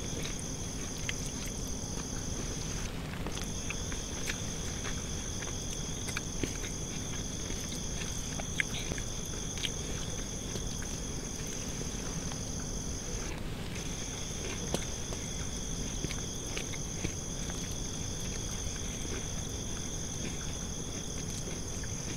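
Crickets trilling steadily in a high pitch, breaking off briefly twice. Over the trill come soft, scattered clicks of fingers mixing rice and curry on a plate.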